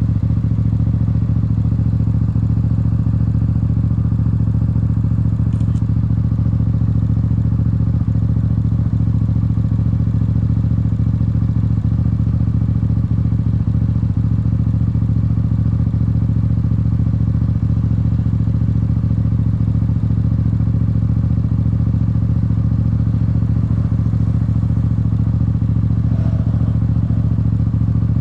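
Yamaha R7's parallel-twin engine idling steadily, with no revving.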